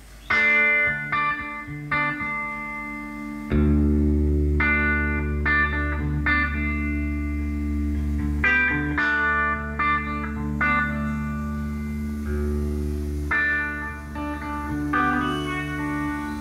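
The guitar intro of a live band recording, played back through Marantz 940 speakers driven by a Pioneer SX-1080 receiver. Plucked guitar notes open it, and a bass line comes in about three and a half seconds in.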